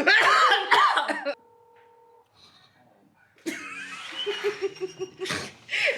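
People laughing hard, breaking off after about a second, then laughing again from the middle on in quick, even pulses of about six a second.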